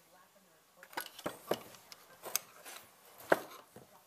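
Metal parts of a GM TBI throttle body and hand tools clicking and knocking on a wooden workbench as the unit is taken apart. About six sharp clinks and knocks come at uneven intervals, the loudest about three seconds in.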